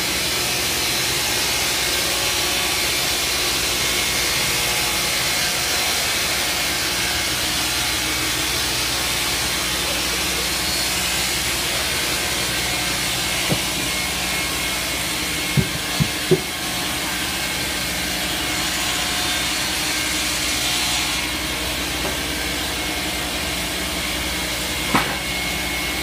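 Shengong MJY142U-35 multi-blade rip saw running steadily and ripping log cants into boards, a steady motor hum under the hiss of the blades in the wood. A few sharp knocks stand out, three close together just past the middle and one near the end.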